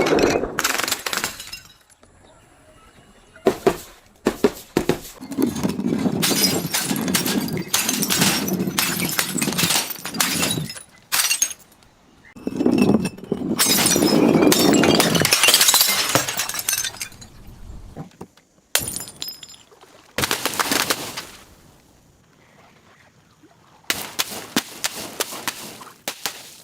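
Glass being crushed and broken: bouts of crunching and cracking glass with sharp clinks, two of them lasting several seconds in the middle, and quieter gaps between.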